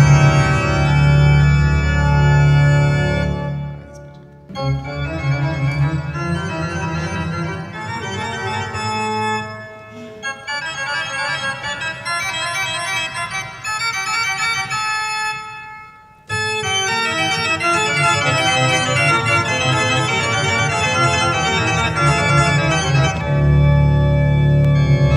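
Two-manual electronic organ being played: full sustained chords over a deep bass, breaking off about four seconds in, then quicker runs of notes with short pauses near ten and sixteen seconds, and the deep bass chords returning near the end.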